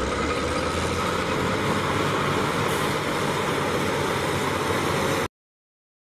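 Caterpillar motor scraper's diesel engine running steadily at work, cutting off suddenly about five seconds in.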